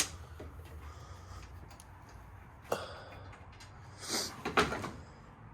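Hand tools and car parts being handled: a few sharp knocks, and a short rattling clatter about four seconds in.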